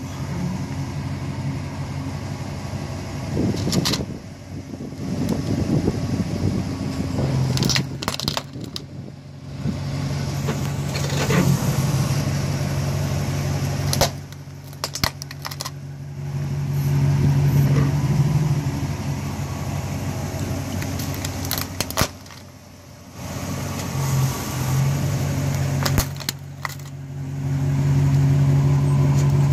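Dodge pickup truck engine idling with a steady low hum as the truck creeps its tyre over a plastic calculator, with a few sharp clicks breaking through.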